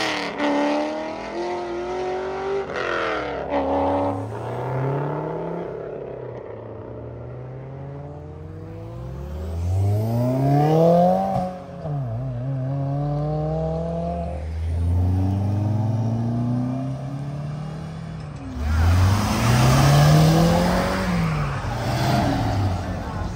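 Modified cars' engines and exhausts accelerating away, the pitch climbing and dropping back at each gear change. A loud hard acceleration comes near the end.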